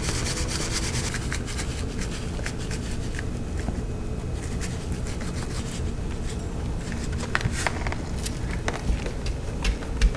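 Hands working coarse dry rub into beef short ribs: light scratching and patting, with scattered sharper taps in the last few seconds, over a steady low hum.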